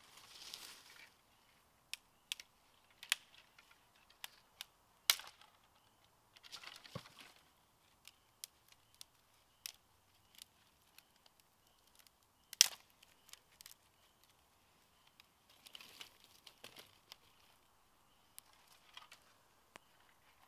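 Dry sticks snapping and clacking as they are laid into a stone fire ring, with irregular sharp cracks (the loudest about five seconds in and again about twelve seconds in) and a few short spells of rustling in dry leaves.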